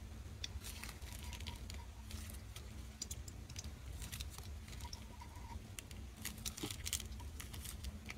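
Runny clear slime stretching and dripping from its tub, making faint, irregular sticky clicks and crackles.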